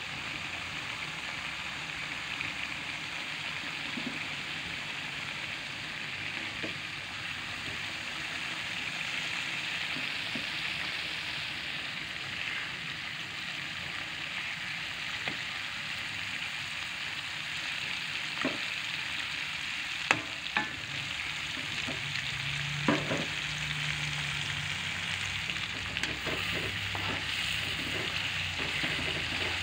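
Chili sambal sizzling steadily as it fries in oil in a steel wok. A few sharp clicks and scrapes of a metal spatula against the wok come in the second half.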